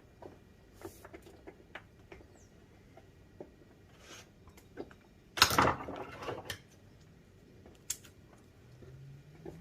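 Scattered small clicks and knocks of hands working on the player-piano stack's rubber tubing and fittings, with a louder scuffing noise lasting about a second a little past the middle.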